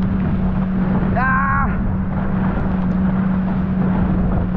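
Watercraft engine running at a steady pitch, with wind and water rushing over it; one short high voice call about a second in.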